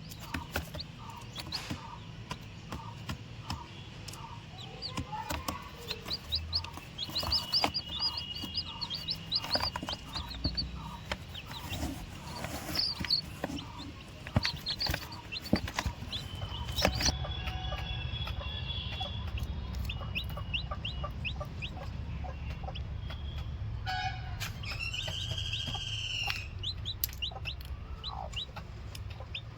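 Chickens: chicks peeping in quick series of short high notes, with clucking and one longer drawn-out call about 25 seconds in. A steady low hum runs underneath from just past halfway.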